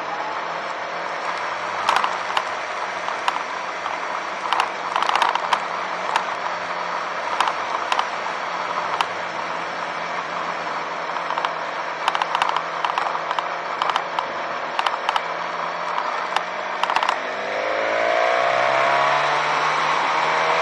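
Motorcycle engine running at low revs over cobblestones, with scattered sharp rattles and clatters from the bumpy paving. Near the end the clatter stops and the engine rises in pitch and gets louder as the bike accelerates on smooth road.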